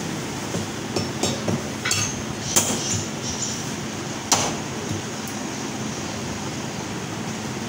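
Meat cleaver chopping lamb on a round wooden chopping block: a series of sharp chops in the first half, the loudest about two and a half and four seconds in.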